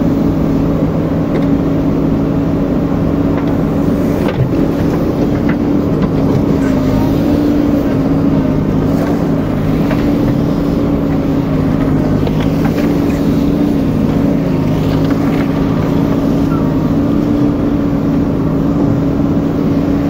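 JCB backhoe loader's diesel engine running steadily while the backhoe digs, heard from inside the operator's cab. It is a loud, even hum whose pitch sags and recovers slightly a few times as the hydraulics take load.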